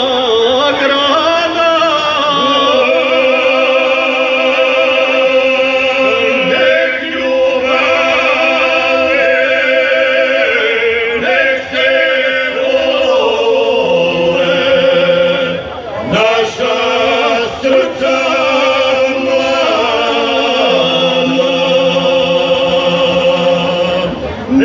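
Male folk singing group singing together in harmony, unaccompanied, with long held notes and vibrato and the parts moving between a few sustained pitches.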